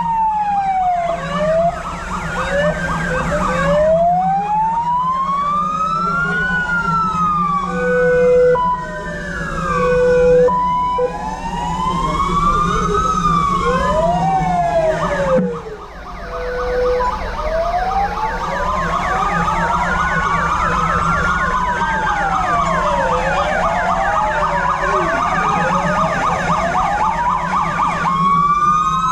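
Several fire-vehicle sirens wailing at once, their rising and falling tones overlapping out of step, over a steady low hum. A few short steady horn notes break in about a third of the way through.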